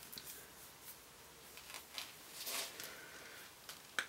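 Faint clicks and a short rasping crunch about two and a half seconds in, from cutters working through a bicycle gear shift cable housing; the cutters are not very sharp and leave a ragged cut.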